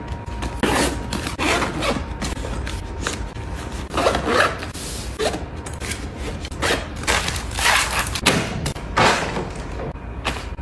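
Fabric backpack and packing items handled by hand: cloth rustling and rubbing in irregular swishes, with a few soft thumps as a bottle is pushed into a side pocket.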